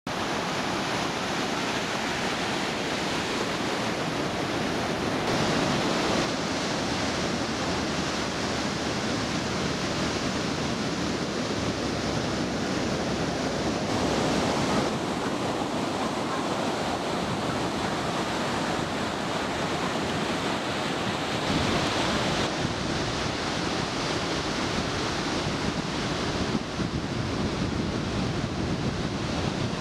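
Ocean surf: large waves breaking and whitewater rushing, a steady wash of noise with wind on the microphone. The texture of the noise shifts abruptly a few times.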